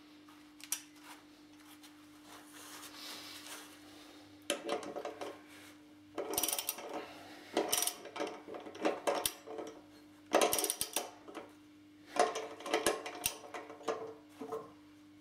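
A socket ratchet clicking in about five short bursts from a few seconds in, as a lawn tractor's blade bolt is tightened down. A steady low hum runs underneath.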